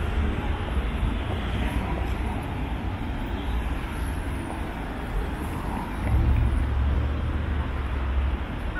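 City street ambience: a steady wash of road traffic, with a low rumble that swells about six seconds in and fades again near the end.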